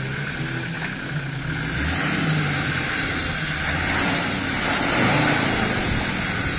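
Land Rover Defender engine revving while its tyres spin and churn in deep mud, the vehicle struggling for grip. The engine and the churning get louder from about two seconds in and are loudest around four to five seconds.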